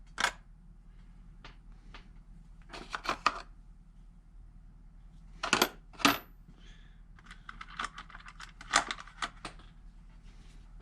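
Small metal TIG torch parts (collet, collet body, gas lens pieces) clicking and clinking as they are picked up, set down and fitted together. There are a few sharp clicks, one with a brief high metallic ring, then a run of light rapid ticks near the end.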